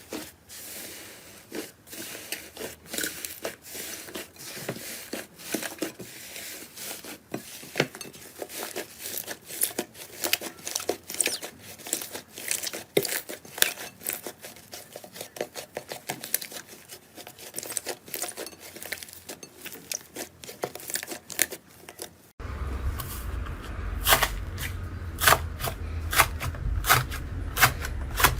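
Slime being squished and worked, with dense sticky crackles and pops. About 22 seconds in it changes to louder, sparser pops over a low hum.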